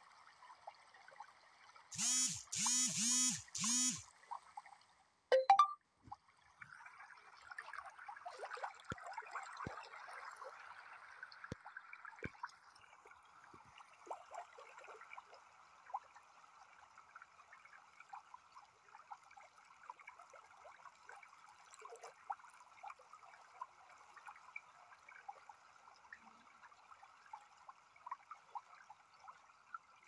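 Faint trickling water running throughout. About two seconds in come four short, loud pitched sounds in quick succession, and a brief falling sweep follows a little after.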